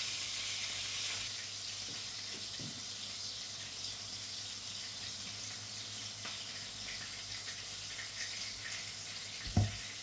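Wet squelching and dripping as a hand squeezes the water out of grated white radish in a plastic bowl, over a steady hiss. A dull thump near the end.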